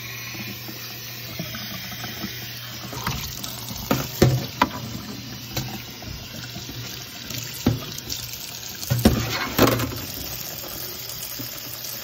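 Kitchen tap running water onto a dishwasher's mesh filter being rinsed in a stainless steel sink. Several sharp knocks and clatters at irregular intervals as the filter is handled, the loudest around four seconds in and again near nine to ten seconds.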